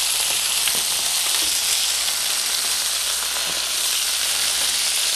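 Flour-dredged chicken breasts frying in oil in a stainless steel skillet: a steady sizzle with faint crackles, the chicken just about done.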